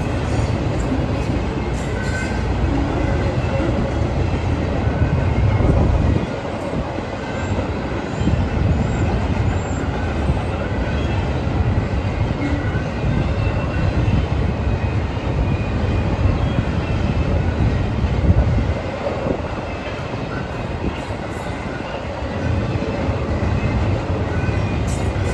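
Freight train rolling past, with a steady, loud low rumble of cars on the rails that eases briefly twice.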